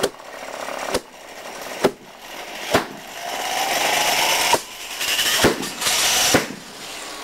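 Homebuilt turbocharger jet engine, fuelled with pressurised kerosene, on a rough start: a series of sharp bangs about one a second, coming faster near the end, over a rushing hiss, with a rising whine in the middle as the turbine spools up. The bangs come from fuel lighting unevenly during the noisy start.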